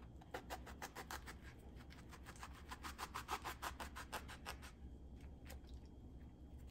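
Kitchen knife sawing into small eggplants to slit them, a quick run of short faint rasping strokes, about eight a second, that stops about two thirds of the way through, followed by a few scattered clicks.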